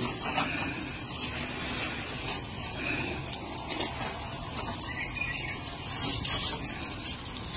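Thin plastic bag rustling and crinkling in small irregular bursts as it is handled and weighed on a hand-held steelyard scale, over a steady hiss.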